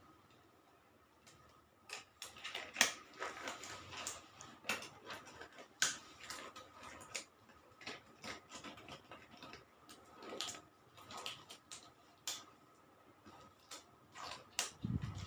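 Irregular clicks, light knocks and rustling of small objects being handled and set out as nursing equipment is prepared, starting about a second in, with a couple of low bumps near the end.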